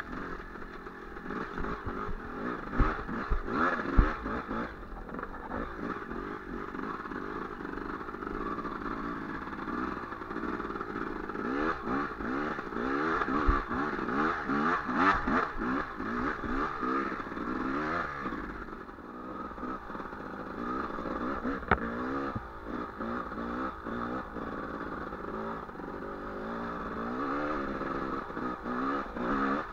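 Enduro dirt bike engine being ridden off-road, its pitch rising and dropping back again and again as the throttle is worked, with the bike clattering over rough ground and a few sharp knocks.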